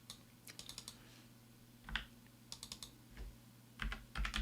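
Computer keyboard being typed on, faintly, in three short runs of quick keystrokes with a couple of single clicks between them.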